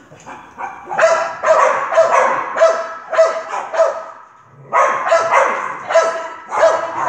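Small curly-coated dog barking in quick runs of sharp barks, about two a second. The barks start about a second in, break off briefly around the middle, then start again.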